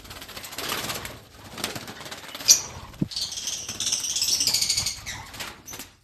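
A flock of lovebirds fluttering and flapping their wings, with a dense spell of high-pitched chattering from about three to five and a half seconds in.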